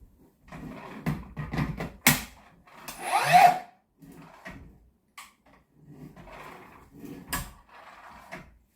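Handling noise from hard plastic parts being moved about: scrapes and rustling broken by a few sharp knocks, the loudest about two seconds in and again a little after seven seconds.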